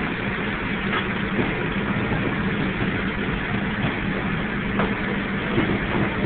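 Steady drone of commercial kitchen machinery with a low hum, and a couple of faint taps at the cutting board.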